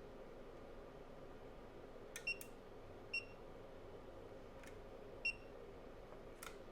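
Three short, high electronic beeps from a digital clamp meter, spaced about a second or two apart, among a few small sharp clicks.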